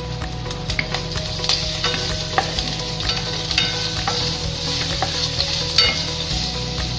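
Pork cubes sizzling as they fry in a nonstick wok, stirred with a spatula that scrapes and clicks against the pan many times. The fat is rendering out into oil.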